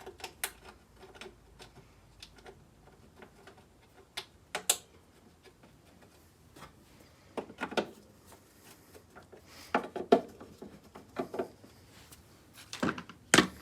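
Scattered clicks and knocks from a window air conditioner's front panel and grille being handled and fitted back on. A few louder knocks come about four and a half, seven and a half, ten and thirteen seconds in.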